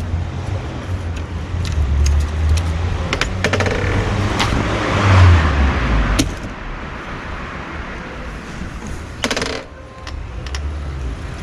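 A car passes on the street, its rumble building to its loudest about five seconds in and then fading. Several sharp metallic clicks and clinks come from the bicycle as its crank is turned by hand.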